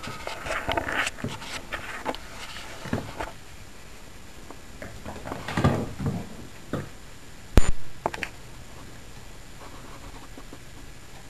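Irregular scuffs, patters and light taps on a wooden floor, with one sharp knock about seven and a half seconds in; the last few seconds are quieter.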